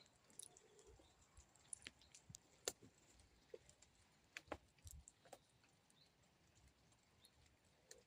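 Near silence: quiet room tone with a few faint scattered clicks and ticks, the sharpest a little under three seconds in.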